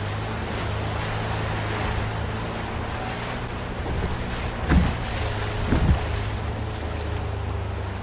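Tohatsu 9.8 two-stroke outboard motor running steadily under the rush of whitewater and wind, with two thumps about a second apart near the middle as the inflatable boat hits waves.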